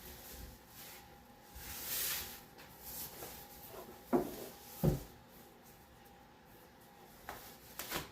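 Handling noises as the spoiler and its packaging are moved about: a soft rustle about two seconds in, two dull knocks around the middle, and a couple of light clicks near the end.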